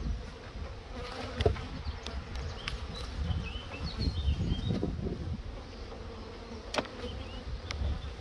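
Honeybees buzzing around an open hive, a steady hum. A few sharp clicks and knocks from the hive tool on the lid and wooden frames, the loudest about a second and a half in, two more near the end.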